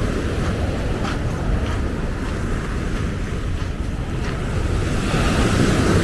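Wind buffeting the microphone over the wash of ocean surf, with a wave washing in more strongly near the end. Faint crunching footsteps on the beach recur about every half-second to second.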